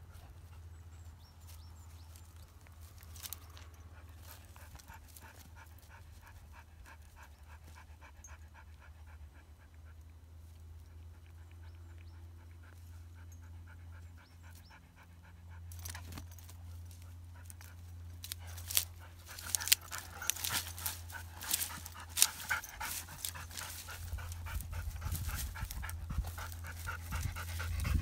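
Kangal dogs panting in an even rhythm, with a flurry of louder, sharper scuffling noises in the last third as they tussle.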